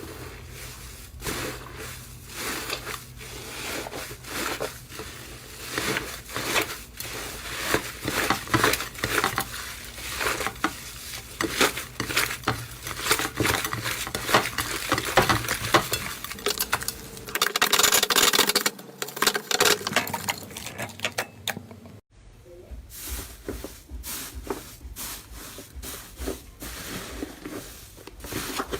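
Slime being squeezed, poked and pressed by hand, giving a dense run of small wet clicks and crackles. A louder, hissing crackle comes just before a short break about two-thirds of the way in, and the clicking then resumes.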